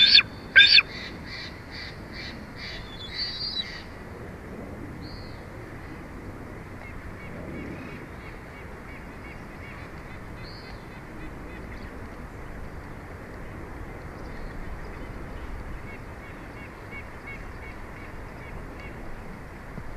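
Bald eagle calling: loud, high-pitched chittering notes at the start, then a run of fainter repeated notes that stops about four seconds in. After that come only occasional faint calls over a steady background hiss.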